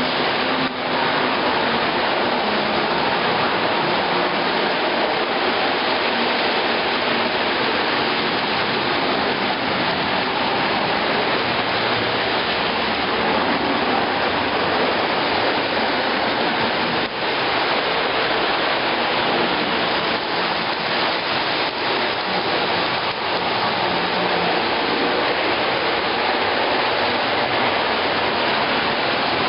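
HO-scale model train running on the layout's track: a steady rushing rumble of wheels and motor, with a few faint clicks.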